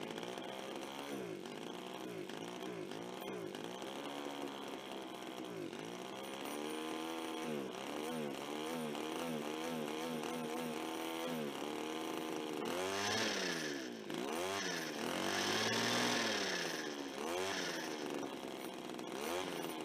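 Small two-stroke chainsaw engine running on a cheap clone carburetor, its speed hunting up and down about once a second while the mixture screws are turned, with two higher revs in the second half. The owner takes this to mean it is running too lean.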